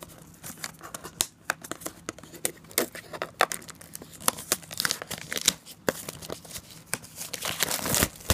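Clear plastic shrink-wrap being torn and peeled off a cardboard box, crinkling in a dense run of irregular crackles that grows louder near the end.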